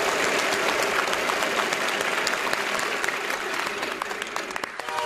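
Studio audience applauding, a steady dense clapping that runs without a break.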